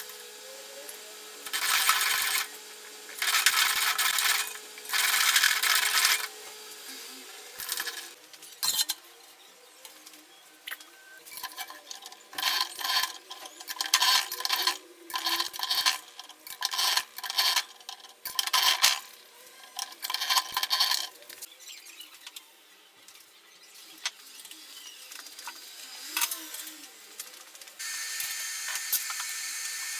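Thin sheet steel rattling and scraping as it is worked through a bench slip roll, in repeated bursts about a second long, several of them short and close together through the middle.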